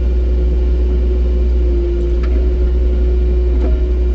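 Excavator's diesel engine running steadily under load: a deep rumble with a steady whine above it, picked up by a phone in the operator's pocket in the cab.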